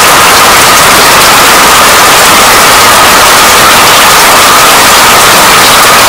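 Steady, loud rain: a dense, even hiss with no breaks or changes.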